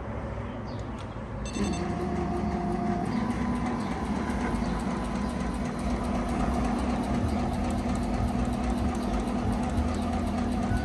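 Tajima TFMX-C1501 single-head embroidery machine starting about a second and a half in, then running steadily with the even rapid rhythm of its needle drive, while its hoop frame stays still: the fault of hoops not moving.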